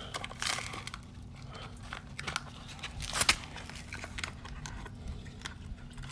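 Crinkling and rustling of packaging as a new thermostat is taken out, with a few sharp clicks.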